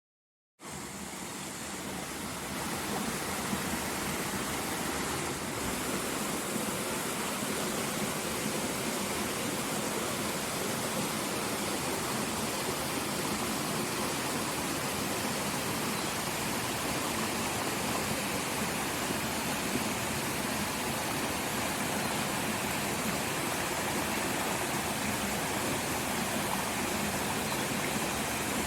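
Waterfall pouring onto rock and sheeting down a sloping rock face: a steady, even rush of water that starts about half a second in.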